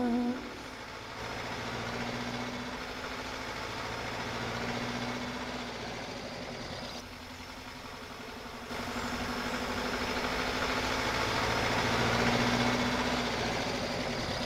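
Hindustan Ambassador car driving with its engine running, a steady hum that dips for a moment and then grows louder about two-thirds of the way through.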